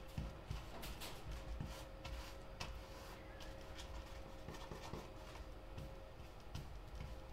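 Paintbrush strokes scrubbing paint across a canvas: faint, irregular scratchy swishes, over a faint steady hum.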